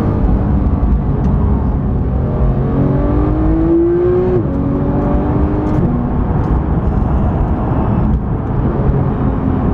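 Porsche 991 GT3's naturally aspirated flat-six heard from inside the cabin under acceleration. The engine note rises, drops sharply with an upshift about four seconds in, and drops again with a second upshift about a second and a half later, over steady road and tyre noise.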